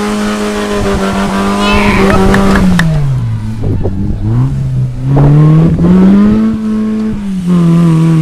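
Off-road 4x4 vehicle engine working under load: revs hold high, drop off about three seconds in, climb again, then ease down near the end.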